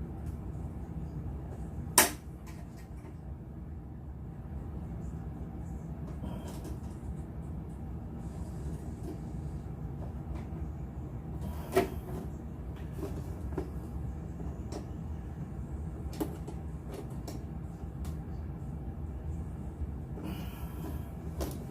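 Plastic crate hinge and needle-nose pliers clicking and knocking as splined hinge pins are forced into place. There is a loud sharp click about two seconds in, another near the middle and a few fainter ones, over a steady low hum.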